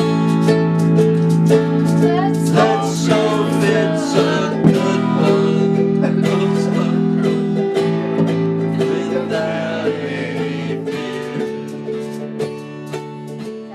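Music: a strummed acoustic guitar with singing, getting quieter over the last few seconds.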